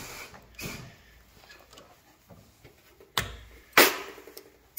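Two sharp metal clacks about half a second apart near the end, the second the loudest and briefly ringing. They come from the valve spring compressor knocking the last keepers loose on a Subaru EJ25 single-overhead-cam cylinder head, with soft handling noise before them.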